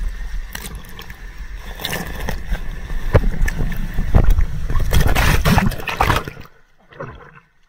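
Loud rushing and splashing water with many knocks, growing stronger about five seconds in, then cutting off abruptly about six and a half seconds in, leaving only a few faint knocks.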